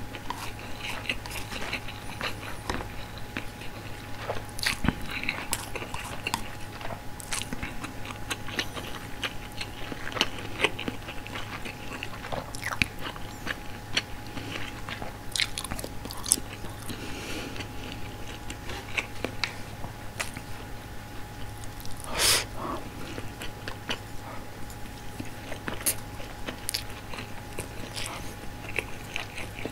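Close-miked eating of white rice and frank ham: steady irregular chewing with wet mouth smacks and light clicks of wooden chopsticks. There is one louder smack about three-quarters of the way through, over a faint steady hum.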